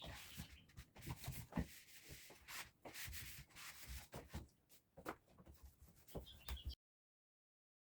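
A cloth scrubbing and wiping the surfaces of a refrigerator in irregular rubbing strokes, with small knocks and bumps. Faint bird chirps sound in the background.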